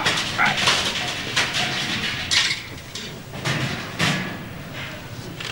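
Irregular knocks and thumps on a wooden door as a man shoves and leans against it.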